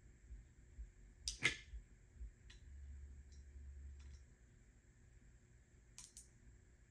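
A short clatter of small parts and tools being handled, then a few scattered light clicks and a quick double click near the end.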